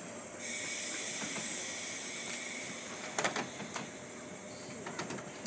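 A steady hiss of compressed air from a 189-series electric train, starting about half a second in and slowly easing off: the air brakes releasing as the train sets off. A couple of sharp clicks come about three seconds in.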